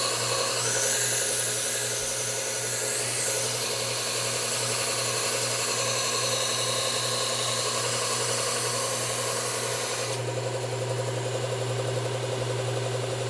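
Electric belt sharpener running, with a garden tool's steel blade ground against the belt over the steady hum of the motor. About ten seconds in, the grinding stops and the motor runs on alone.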